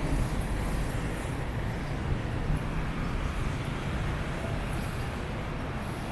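Steady rumble of road traffic from cars on a nearby city street, with no distinct single event, easing slightly toward the end.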